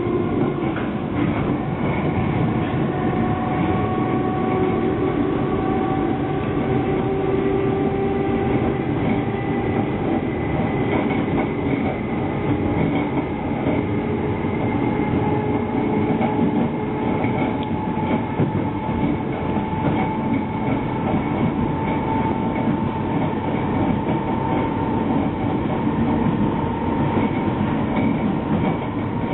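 London Underground District Line train running between stations, heard from inside the carriage: a steady rumble of wheels on rail, with a motor whine that climbs slowly in pitch as the train gathers speed.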